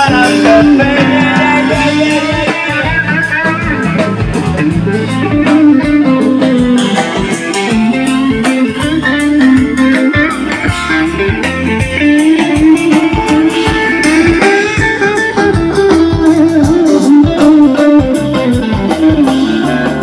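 Live rock band playing an instrumental section with no singing: guitars and bass guitar over a drum kit, amplified through the stage speakers.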